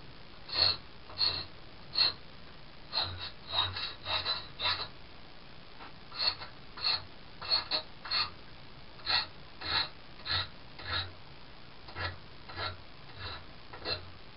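Hand file rasping across the end of a steel brake-line tube held in a bench vise, about twenty short strokes at roughly one to two a second. The inside edge is being sharpened into a hole-punch cutter for rubber.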